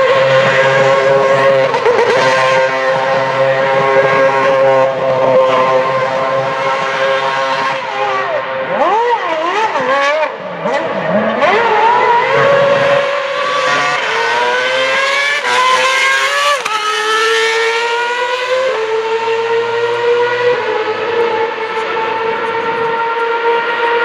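The Renault RS27 2.4-litre V8 of a 2012 Lotus E20 Formula 1 car, held at high revs with the rear tyres spinning in smoky donuts, its pitch wavering as the throttle is worked. About halfway through it revs up through about three quick upshifts as the car pulls away, then runs on at a steadier note, a little quieter.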